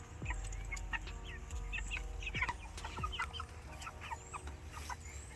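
A flock of young Cornish Cross meat chickens peeping and clucking, many short overlapping calls.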